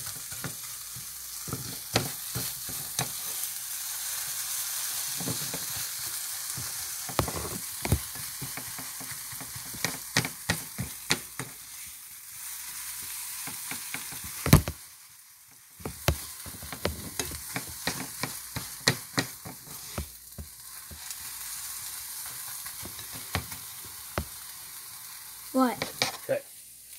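Scrambled eggs sizzling in a frying pan while a spatula stirs and scrapes them, with frequent clicks and taps of the spatula against the pan and one louder knock about halfway through.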